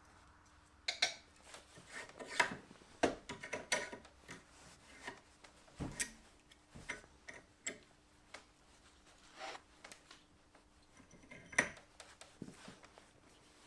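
Scattered, irregular light clicks and taps of metal tools and parts being handled on a bench vise holding a knife being fitted with a brass rivet pin.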